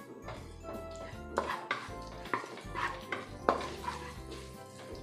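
Wooden spatula scraping and knocking against a nonstick wok while stir-frying onion and garlic, about two strokes a second starting a second and a half in, over background music.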